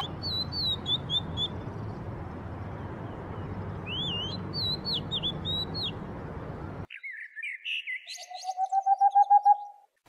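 Oriental magpie-robin singing short, sweet whistled phrases that slide up and down, over a steady low hum of background noise. About seven seconds in, the sound cuts to another bird giving a fast run of about ten repeated notes that grow louder.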